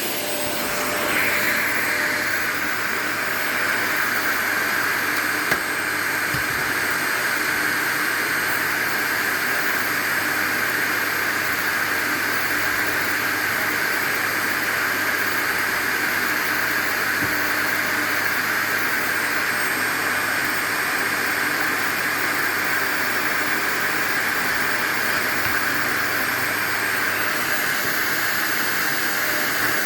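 Vacuum cleaner running steadily with a rushing hiss, growing a little louder about a second in.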